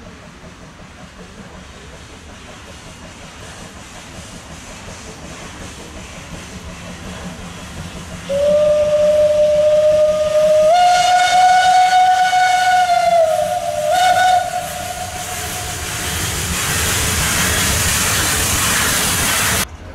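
Steam locomotive Eb 3/5 No. 9 approaching, then sounding its steam whistle. One long blast begins about eight seconds in and steps up in pitch partway through, followed by a short second blast. As the engine draws level, a loud hiss of escaping steam follows and cuts off suddenly near the end.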